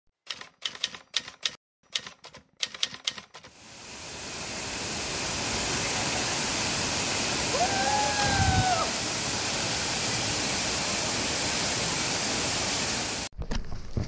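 Typewriter keystrokes clacking in quick groups for about three seconds, then the steady rush of a waterfall fades in and holds, with a brief faint whistle about halfway through, and cuts off abruptly near the end.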